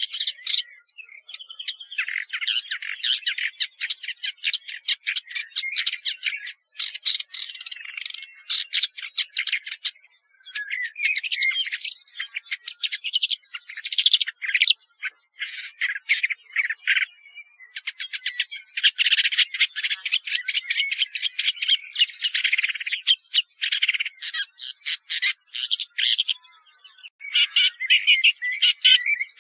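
Woodchat shrike singing: a long, fast chattering song of rapid notes, broken by a few short pauses.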